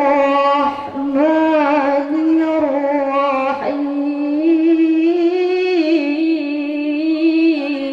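A young woman's voice in melodic Qur'an recitation (tilawah), amplified through a microphone. She holds long, drawn-out notes with wavering ornamented turns and breaks off briefly about a second in and again near the middle.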